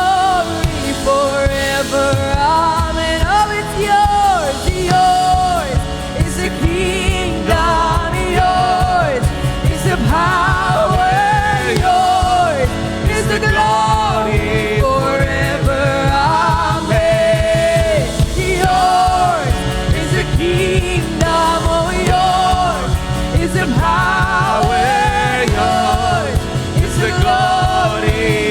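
Live worship music: a singer's voice over a full band with a steady beat.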